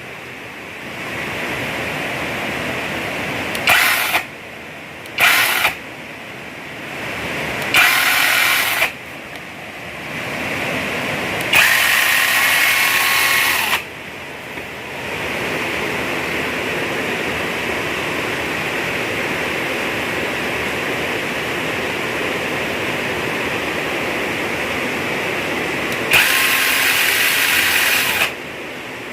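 Electric chainsaw running, its motor rising to a louder whine in several bursts, the longest about two seconds each, around 12 and 27 seconds in, over a steady running noise.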